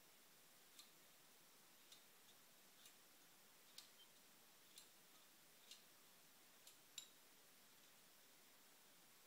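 Faint, sharp metallic clicks, roughly one a second and irregular, over a steady low hiss, as a small T-handle wrench is worked on a CNC router spindle's bearing assembly clamped in a vise.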